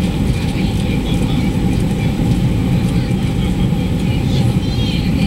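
Airbus A330-200 jet engines and airflow heard inside the passenger cabin on takeoff: a loud, steady low rumble with a steady hum over it.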